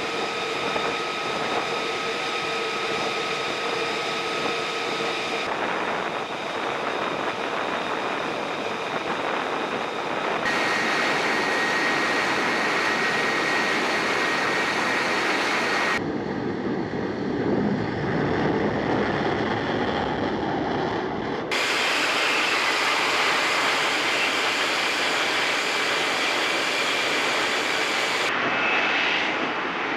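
F-35B Lightning II jet engine running, a steady dense jet noise with a high whine. The sound changes abruptly every five seconds or so as the footage cuts between shots.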